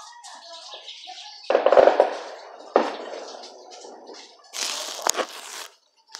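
Sudden knocks and clattering thumps about one and a half seconds in and again near three seconds in, then about a second of rustling, scraping noise with a sharp click as the phone is handled.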